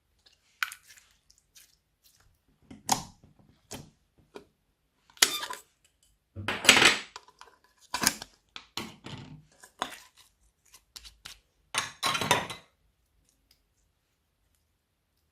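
Slime being mixed and squeezed: irregular sticky clicks and short squishy bursts, with quiet gaps between them.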